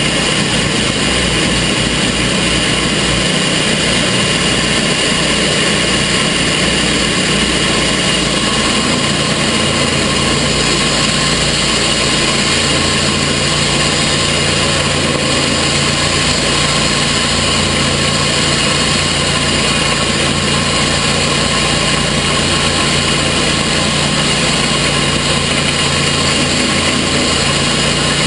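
Gasoline engine of a portable sawmill running steadily at an even speed, with no change in revs or load.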